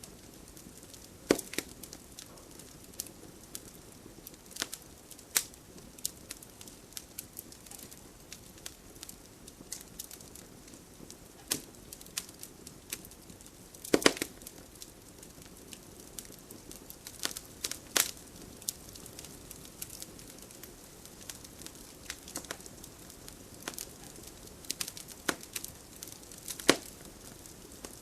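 A fire in a fireplace crackling steadily, with sharp, irregular pops and snaps over a low hiss. The loudest pops come about a second in, as a quick cluster around the middle, and near the end.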